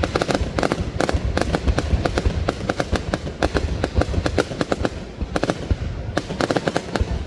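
Fireworks display: rapid, irregular bangs and crackles in quick clusters over a continuous low rumble.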